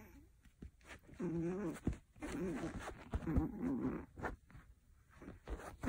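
Pomeranian puppy growling during a tug-of-war with a sock: three wavering growls of about a second each, one after another.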